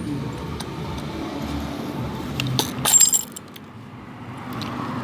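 Metal tools and car parts clinking as they are handled, with a burst of sharp, ringing metallic clinks about three seconds in.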